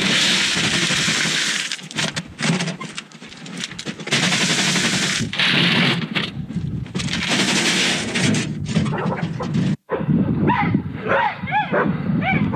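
Gravel pouring and sliding out of a tipped steel wheelbarrow onto a gravel bed: a loud rattling rush of stones in several long pours. Near the end, after a sudden break, dogs barking.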